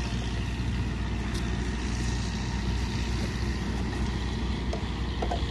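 Steady low mechanical rumble with a faint hum, like an engine idling, with a few faint clicks and taps over it.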